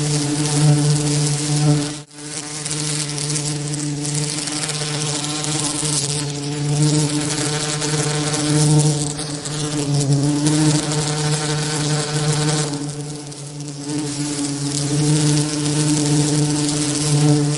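Bees' wings buzzing in a steady, continuous drone over a bright hiss, with a brief sharp drop in loudness about two seconds in.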